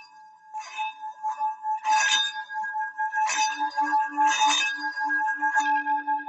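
Metal Bali singing bowl tuned to D, played by circling a mallet around its rim. It rings with steady overtones while a low hum builds and pulses, and scratchy swells from the mallet on the rim come about once a second.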